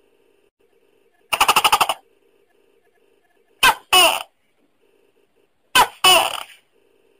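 Tokay gecko calling: a quick rattling run of about eight clicks, then two two-part "to-kek" calls about two seconds apart, each a short note followed by a longer one.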